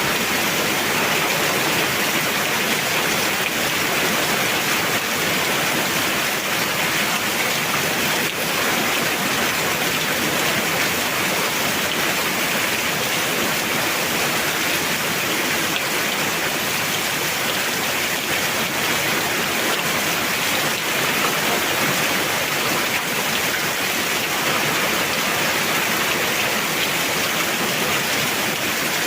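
Heavy rain falling steadily, a dense even hiss of rain.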